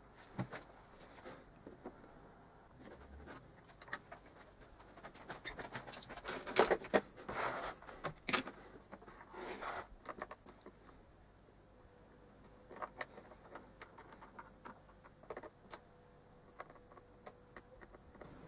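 Faint clicks and scrapes of a wooden skewer moving a copper PCB about in a plastic tub of etching solution. Louder handling noise comes between about six and ten seconds in.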